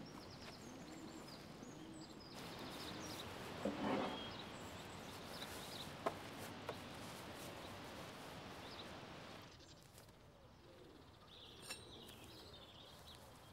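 Quiet canal-bank ambience with birds chirping, and a few light knocks and rustles from handling the gangplank and mooring rope, the loudest about four seconds in.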